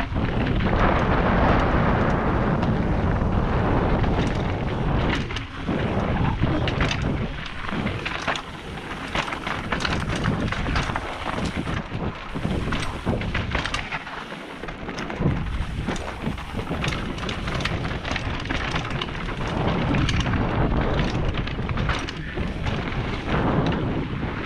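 Wind buffeting the camera microphone over the tyres of a mountain bike rolling fast down a loose dirt and stone trail, with many short clicks and rattles as the bike hits bumps and stones.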